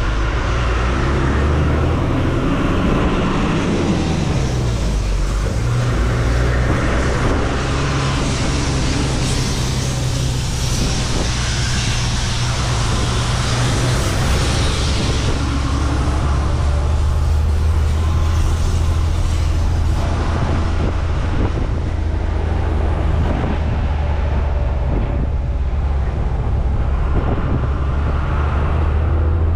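Tata 1613 truck's diesel engine running on the road, heard from the cab, with a steady haze of road and wind noise through the open windows. The engine note glides a few seconds in and shifts lower about halfway through, then holds a steady drone.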